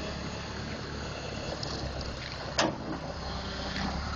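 Caterpillar wheel loader's diesel engine running steadily, with a single sharp knock about two and a half seconds in.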